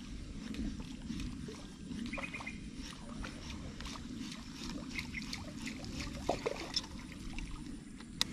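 Water lapping and trickling against a kayak hull, with scattered small clicks and ticks and a short run of chirps about two seconds in.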